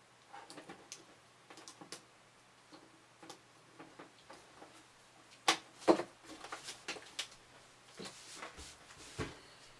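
Handling noise from a mini hi-fi main unit being turned round and moved on packing sheet: scattered light clicks and taps, with two louder knocks about halfway through.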